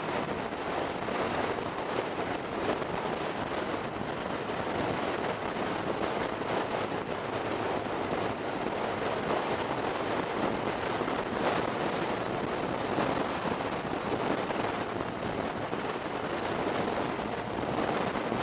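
Wind buffeting the microphone of a motorcycle riding at road speed on a blustery day: a steady rush of wind and road noise with no clear engine note.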